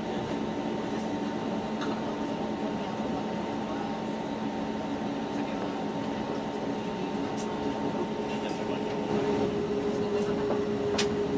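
Steady cabin drone inside an Airbus A320neo, with several held low tones; a higher steady tone joins about nine seconds in, and a short sharp click sounds near the end.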